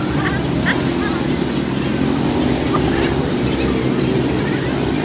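An engine running steadily with a low, even rumble, with faint voices over it.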